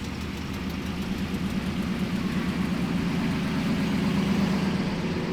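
A car's engine rumbling at low revs with a slightly wavering pitch, getting a little louder about four seconds in.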